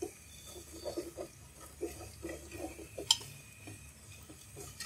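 Wooden spatula stirring cumin seeds into onions frying in oil in a metal pot, a run of short, uneven scrapes against the pot. There is one sharper knock about three seconds in.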